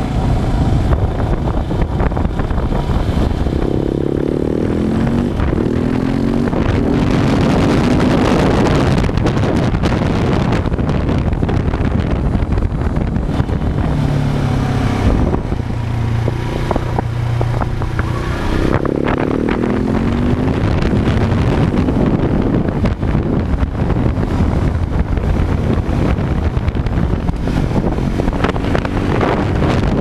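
Heavy wind noise buffeting the microphone over a KTM 690 SMC supermoto's single-cylinder engine. The engine note rises and falls as the rider works the throttle through the bends, settling to a lower, steadier note for a few seconds in the middle.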